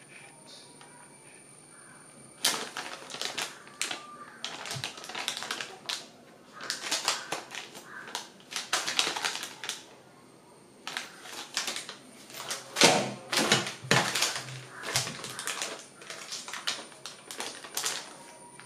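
Plastic packets crinkling and rustling as they are handled, in irregular bursts with short pauses.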